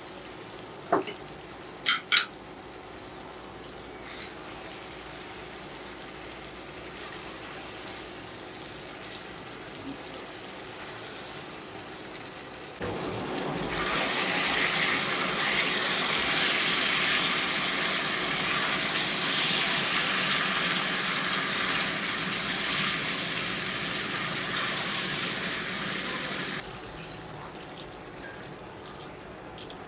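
A thick curry simmering in a steel pot, with faint steady noise and a few sharp knocks of a spatula against the pot about one and two seconds in. About halfway through, a much louder, steady water-like rushing noise sets in abruptly and cuts off just as suddenly a few seconds before the end.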